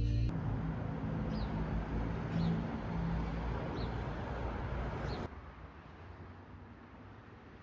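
Steady rumbling road noise of a vehicle, with four short high chirps about a second apart. About five seconds in it cuts to much quieter ambience.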